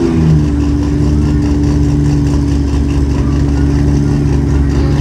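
Drag car's engine idling steadily just after its burnout, a rev falling away right at the start.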